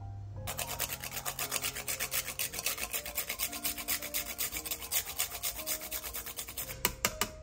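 Whole nutmeg grated on a fine hand-held metal grater: quick, even rasping strokes, about five a second, followed by a few sharp clicks near the end.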